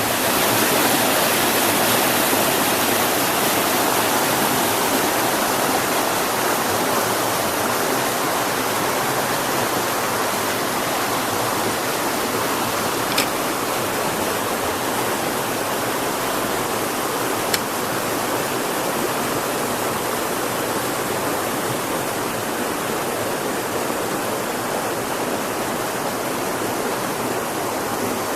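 Stream water rushing and splashing in a steady, dense rush. Twice a brief click cuts through it.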